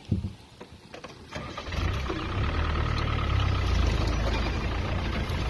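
A vehicle engine sets in about a second and a half in and then runs steadily with a low rumble, after a few short knocks.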